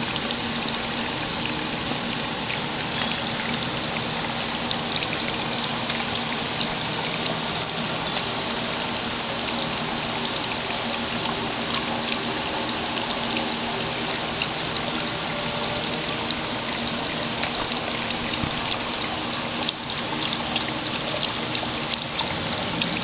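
A small decorative garden fountain, with water falling from a hollow-log spout into a shallow pool, trickling and splashing steadily.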